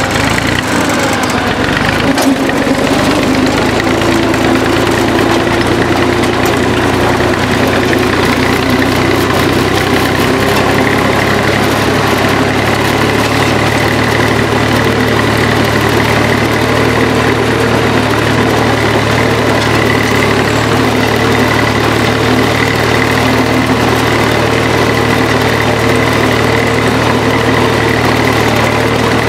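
Farm tractor engine running loud and steady while pulling a tined harrow and leveller through tilled soil, heard up close from the tractor's seat.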